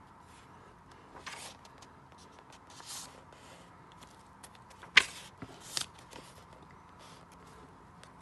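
Pages of a paperback manga volume being turned by hand: several brief papery swishes, the loudest a sharp flick about five seconds in.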